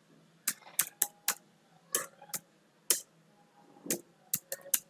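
Computer keyboard being typed on: about a dozen separate key clicks at an uneven pace, with pauses between short runs.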